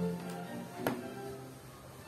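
Background instrumental music with held notes, and a single sharp click about a second in from a tiny plastic building brick being handled.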